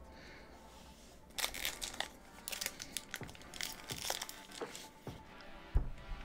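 Crinkling and tearing of a Pokémon TCG booster pack's foil wrapper being torn open and handled. Irregular crackles start about a second and a half in and carry on.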